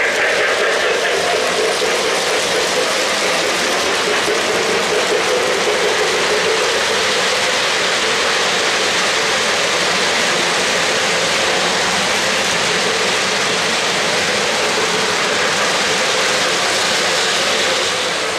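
O-gauge three-rail model trains rolling past at close range: a steady mechanical rattle of metal wheels on the track and the trains' drive gearing.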